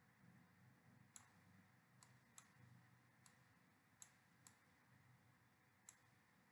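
Near silence broken by about seven faint, sharp computer mouse clicks at irregular intervals.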